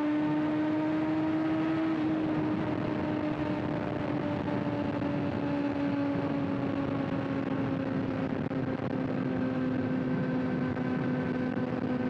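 Kawasaki ZX-6R inline-four motorcycle engine running through an aftermarket SC-Project exhaust with the catalytic converter removed, at a steady cruise. The note climbs a little for the first couple of seconds, then eases slowly and evenly lower.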